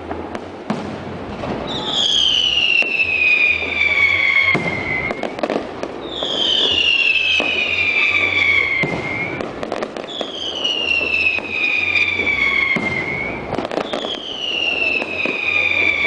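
Fireworks display: four long whistles, each falling steadily in pitch over about three seconds and starting about every four seconds, over continuous crackling and bangs from the bursts.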